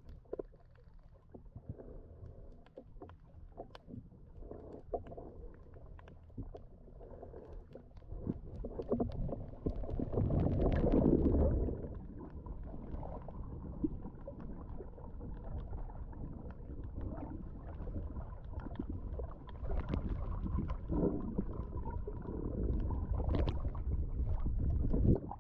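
Muffled underwater sound from a mask-mounted action camera as a diver swims: low rumbling water movement with scattered small clicks. It swells loudest for a couple of seconds about ten seconds in.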